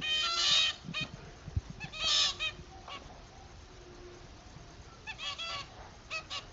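Zebra finches calling: short, nasal, honking beeps in a few clusters, at the start, about two seconds in, and again near the end, with quiet stretches between.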